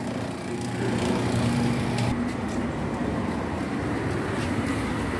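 Street traffic noise: a motor vehicle's engine hums steadily, then gives way to broader road noise about two seconds in.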